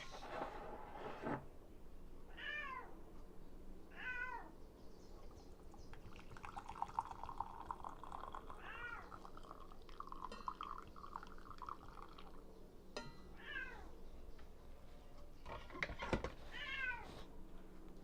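Domestic cat meowing five times, short calls that rise and fall. In the middle, for about six seconds, liquid is poured steadily, most likely coffee into a cup.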